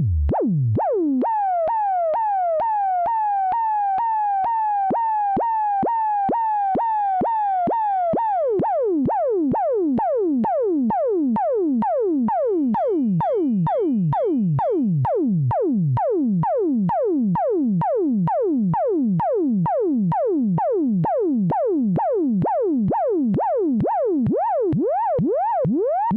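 Eurorack modular synthesizer voice whose pitch is swept by the CEMvelope ADSR envelope generator, retriggered about two to three times a second: a string of quick downward pitch swoops. About eight seconds in the swoops become longer and fall much lower.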